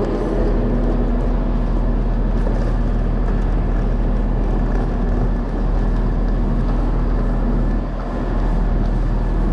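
Railway station ambience: a steady, loud rumble with a low droning hum.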